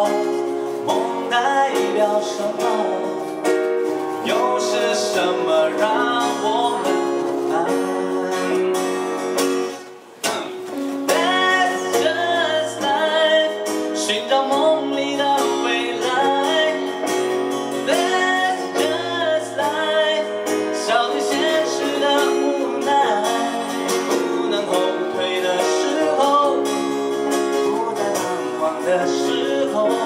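Live pop ballad: a man singing over guitar and keyboard accompaniment, the music dropping away briefly about ten seconds in before voice and instruments come back.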